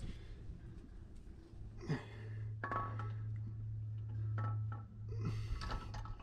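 Light metallic clinks and knocks as a jake brake housing is slid onto its studs and seated on a Caterpillar C12 cylinder head, several of them ringing briefly. A steady low hum runs underneath.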